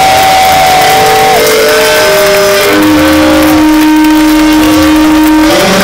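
Heavy metal band playing live: distorted electric guitars sustain long notes that step down in pitch and then climb back up, over drums and cymbals, captured loud and harsh by a phone in the crowd.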